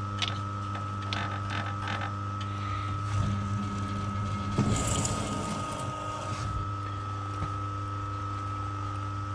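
Small metal lathe running with a steady motor hum and whine while a 3/8" UNC tap in the tailstock chuck cuts a thread into a high-tensile steel bolt. A rougher cutting noise rises in the middle, peaking about five seconds in, as the tap bites, then drops back to the plain motor hum.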